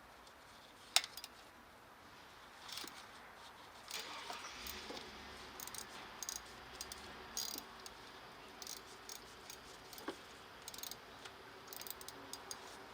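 Scattered small metallic clinks, ticks and rattles of hand tools and bolts being handled while working on the engine, with one sharp click about a second in.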